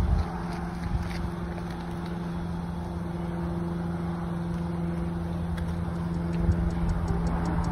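A vehicle running steadily: a low, even hum over road and wind noise.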